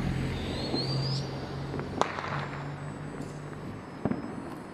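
A vehicle's engine hum dying away down the street over a few seconds, with a brief rising whistle in the first second and two sharp pops about two seconds apart, the first one louder.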